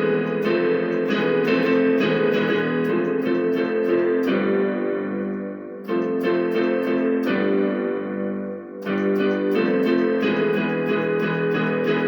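Instrumental keyboard music with piano and guitar-like plucked tones: a steady run of short notes, broken twice by held chords that fade away, about four and about seven seconds in.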